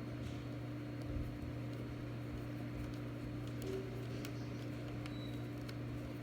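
A steady low hum with a few faint, scattered clicks of a small screwdriver and tiny screws being worked into a laptop's screen bezel.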